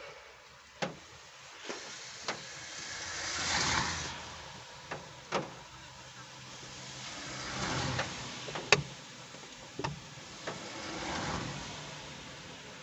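Cars passing one after another, each swelling up and fading away over a couple of seconds, with a dozen scattered sharp knocks and clicks close by.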